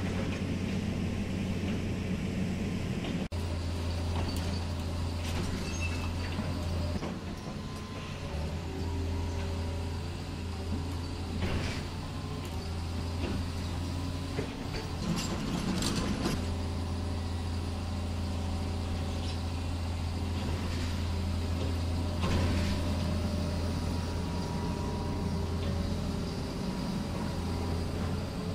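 Scale RC hydraulic excavator's pump running with a steady low hum that shifts in level as the boom and bucket are worked. Now and then the steel bucket knocks and scrapes in the soil.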